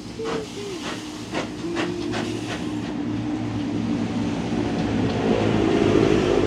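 Narrow-gauge steam locomotive working: exhaust beats about two and a half a second in the first half, then a growing hiss of steam that gets louder toward the end. A short wavering whine sounds right at the start.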